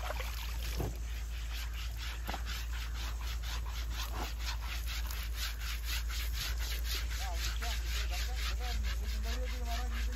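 Fast, even scrubbing strokes on an Asian elephant's wet hide during its bath, several strokes a second, settling into a steady rhythm a few seconds in.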